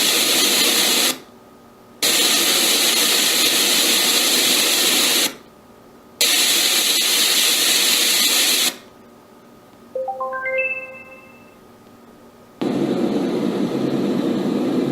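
LATME white noise machine switching between its sounds: three stretches of loud, steady hiss with short pauses between them, then a brief rising run of chime-like tones about ten seconds in. A deeper rushing noise begins near the end.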